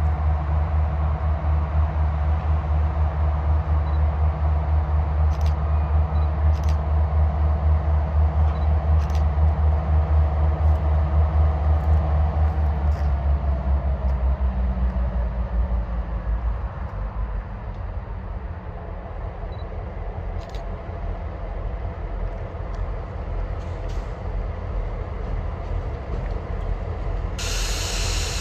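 Diesel locomotive engine running with a loud, steady low rumble that fades away from about halfway through, with a few faint clicks.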